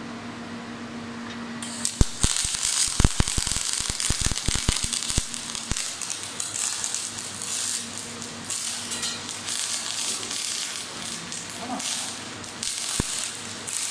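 MIG welding arc from a PoWer Mig 500 gas-shielded welder, crackling and sizzling. It strikes about two seconds in, with many sharp spatter pops over the next few seconds, then settles into a steadier crackle.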